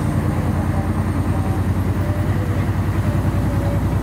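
Airport apron bus driving, heard from inside its cabin: a steady low engine rumble with road noise.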